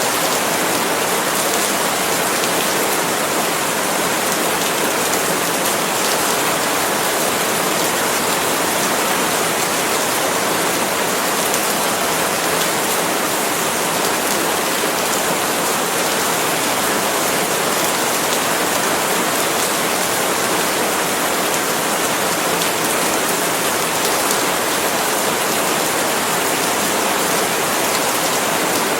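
Steady rain falling on palm leaves, an even, unbroken hiss of drops with no single drips or gusts standing out.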